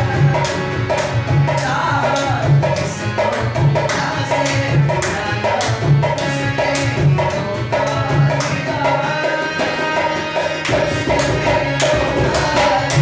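Dholak playing a steady, driving rhythm under a wavering melodic instrumental line, an interlude in a live Hindi film song.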